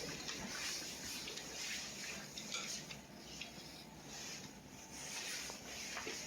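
Faint, irregular scraping and rubbing, as of objects or material being handled.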